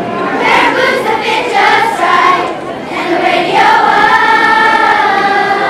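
Children's choir of 4th and 5th graders singing a cappella, with no accompaniment. After a few shorter notes, the voices hold one long note through the second half.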